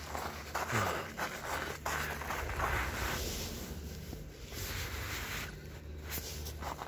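Footsteps and clothing rustle from a person moving on foot with the microphone, irregular scuffs and swishes that ease off in the middle, over a steady low rumble.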